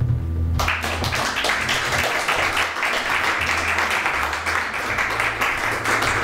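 Audience applauding, breaking out suddenly about half a second in at the end of a poem.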